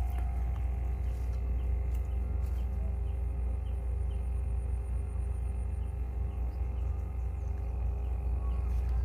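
Steady low outdoor rumble, with a faint high-pitched insect trill for a few seconds in the middle.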